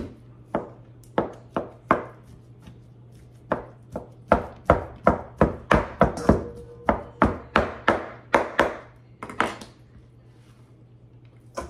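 Kitchen knife chopping cooked chicken on a plastic cutting board: sharp knocks of the blade on the board, a few spaced strokes at first, then a quick run of about three a second through the middle. The run stops a couple of seconds before the end, followed by one last knock.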